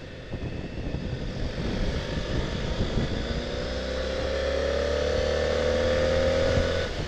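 Motorcycle engine pulling away and accelerating. Its note rises slowly from about three seconds in and cuts off abruptly near the end. Strong wind noise buffets the microphone throughout.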